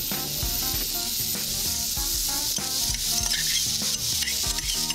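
Eggplant and zucchini frying in oil in a pan, a steady sizzle with scattered clicks of a utensil stirring them.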